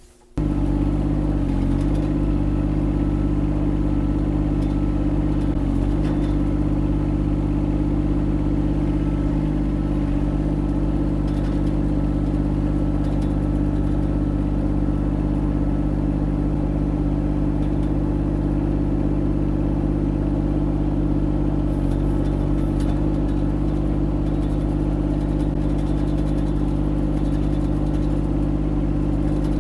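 Kymron XH20d diesel mini excavator's engine running at a steady speed.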